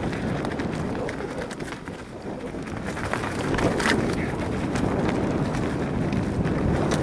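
Bike rolling down a dirt forest trail: tyres crunching over soil, roots and twigs, with the frame rattling and clicking over the bumps. It gets a little louder about three and a half seconds in, with a sharper clatter near four seconds.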